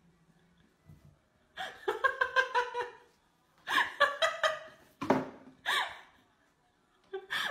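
A person laughing in several short bursts of quick, pulsing 'ha-ha' sounds.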